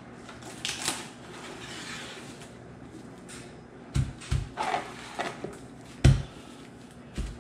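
Plastic cling wrap rustling and crinkling as it is pulled from its cardboard box and spread over a stone countertop. Dull thumps come as the box is set down and pressed against the counter: two close together about four seconds in, the loudest about six seconds in, and one more near the end.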